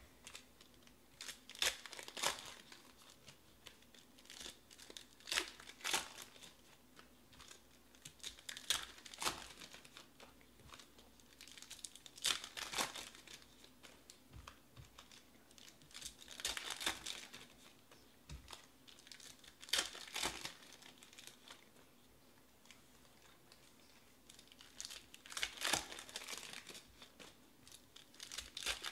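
Foil wrappers of Panini Select baseball card packs crinkling and tearing as packs are ripped open and the cards handled and stacked. The crinkling comes and goes about every three to four seconds.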